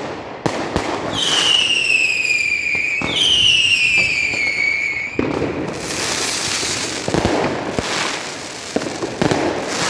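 New Year's Eve fireworks and firecrackers going off: scattered sharp bangs, two long whistles one after the other, each falling in pitch for about two seconds, then a dense stretch of crackle and bangs.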